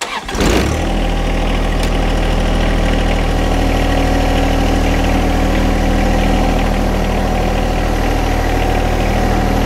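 John Deere 1025R compact tractor's three-cylinder diesel engine starting up at the very beginning, then running at a steady speed.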